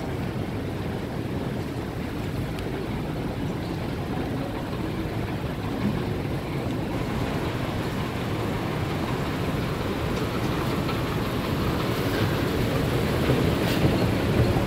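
Steady low rumbling noise of a large airport concourse with escalators running, with no distinct events; it grows a little louder near the end as the escalator is boarded.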